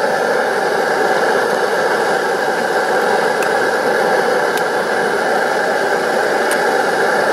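Pressurized camp stove burner running with a steady, loud rushing hiss, with a few light clicks over it.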